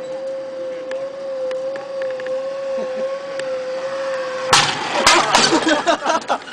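Zip line trolley running along the steel cable with a steady high whine. About four and a half seconds in, the whine stops and a loud clatter and rattle begins as the trolley reaches the stop at the landing.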